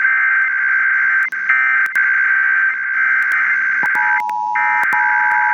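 Emergency Alert System SAME header: loud, rapid warbling digital data tones sounding a Required Weekly Test. About four seconds in, the steady two-tone EAS attention signal starts beneath it, and the data tones break off briefly before a last burst.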